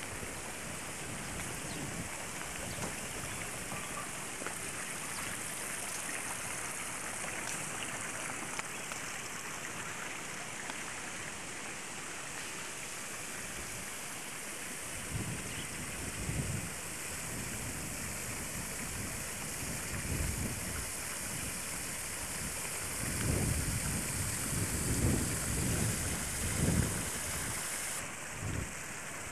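Steady hiss of outdoor noise, with wind buffeting the camcorder microphone in irregular low rumbling gusts through the second half.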